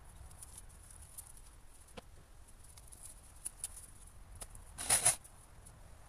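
Sparse faint ticks and twig crackles, then a short double clatter about five seconds in: cut birch firewood logs being dropped into the car trailer.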